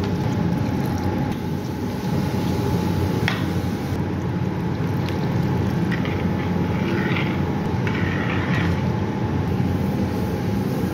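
A steady low mechanical rumble with a constant hum, and a few faint light clicks around the middle.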